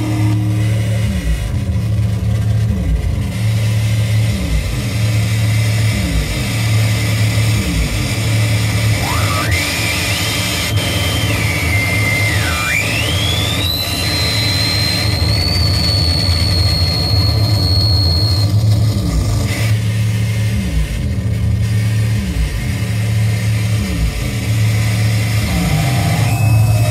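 Live noise music from electronics: a dense, loud low drone pulsing about once a second. A high whistling tone glides up about nine seconds in, dips briefly, then climbs higher and holds until about halfway through.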